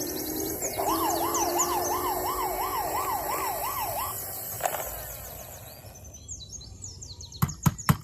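Electronic siren of a toy police car warbling quickly up and down for about three seconds, among other electronic toy sound effects, with a knock just after it and several sharp clicks near the end.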